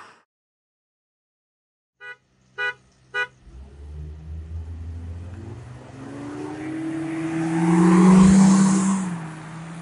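Silent for about two seconds, then three short car-horn beeps. Honda City 1.5 CVT and Toyota Corolla 1.8 Altis engines then accelerate hard in a roll race, their engine note rising and growing louder until the Corolla passes close about eight seconds in with a rush of tyre and wind noise, then easing off.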